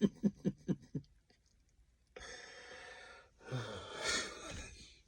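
Short rhythmic chuckling that fades out within the first second, then a pause, then two long breathy exhalations, each lasting a second or more.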